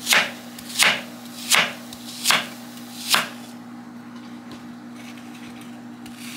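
Chef's knife slicing through apple and striking a wooden butcher-block cutting board: five crisp cuts, about one every three-quarters of a second, then a pause for the last three seconds.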